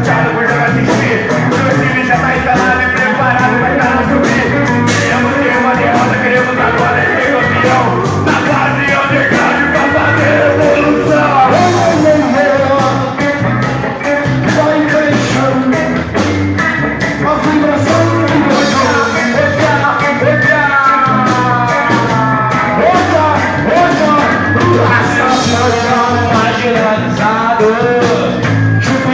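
Live heavy rock band playing, with a singer over guitars and drums.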